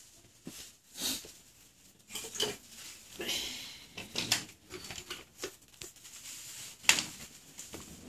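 Rustling, shuffling and scattered light knocks from tools and a power cord being handled, with one sharp knock about seven seconds in.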